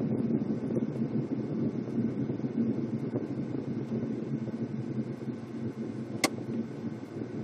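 Steady engine and tyre noise of a car driving on an asphalt road, heard from inside the cabin, with a single sharp click about six seconds in.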